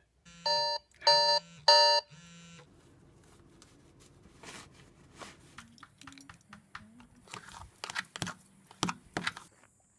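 An electronic wake-up alarm beeps in three loud half-second bursts, with a fainter fourth. Then faint rustling, and from about seven seconds a run of sharp clicks and scrapes: a metal fork mashing boiled egg in a plastic tub.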